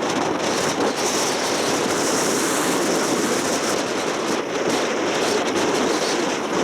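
Open-air tourist road train on the move: steady vehicle and road noise with wind on the microphone.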